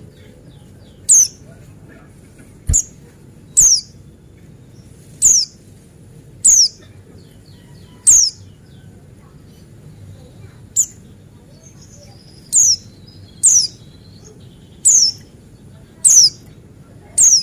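Buxtoni white-eye (pleci) calling: a string of short, very high notes, each sliding sharply down in pitch, given roughly once a second, with faint soft twittering between them.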